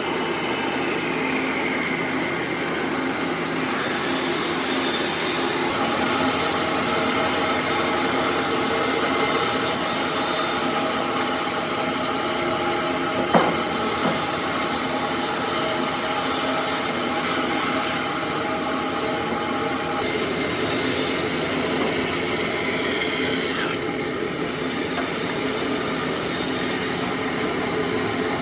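A power tool running steadily while it works wood, with one sharp knock about halfway through.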